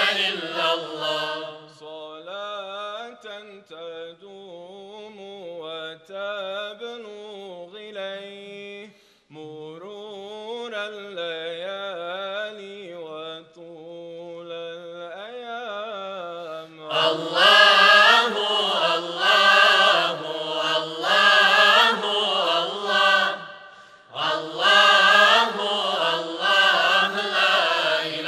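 Men's choir singing, softer for the first part, then swelling to full voice about seventeen seconds in, with a brief pause near the end.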